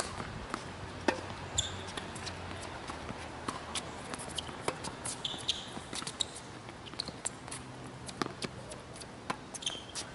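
Tennis rally on a hard court: racket strikes on the ball and ball bounces, heard as a string of sharp pops and taps at uneven intervals, with a few short high squeaks.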